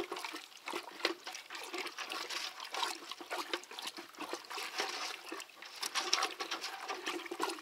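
Black liquid tar of bitumen dissolved in petrol being stirred in a bucket: irregular sloshing and splashing with small wet clicks, going on without a break.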